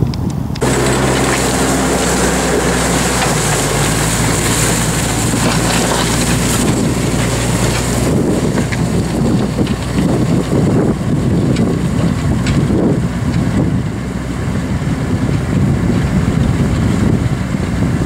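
New Holland tractor engine running under load while pulling a reversible plough through the field, with wind buffeting the microphone. The engine's steady hum is plainest for the first eight seconds or so, then becomes rougher and more mixed with other noise.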